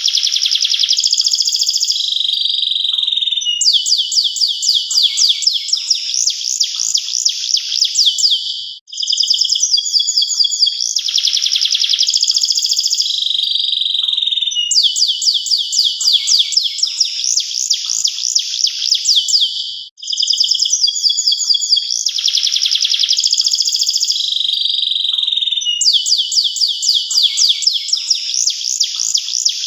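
Domestic canary singing a long, continuous song of rapid rolling trills and quick repeated sweeping notes, with two brief breaks.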